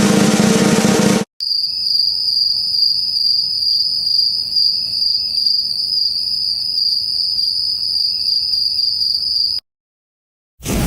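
Crickets chirping: a steady, pulsing high-pitched trill, the stock "awkward silence" cricket sound effect. It is preceded by the end of a drum roll that cuts off about a second in, and is followed near the end by the loud start of another effect after a brief silence.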